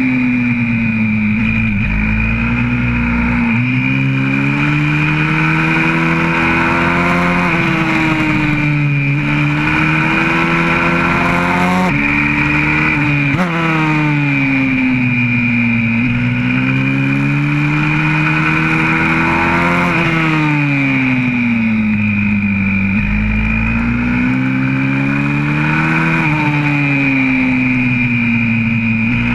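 Onboard sound of a YCF 125cc four-stroke single-cylinder pit bike engine at racing pace. The revs climb under acceleration and fall away several times as the bike slows for corners, with a steady high hiss underneath.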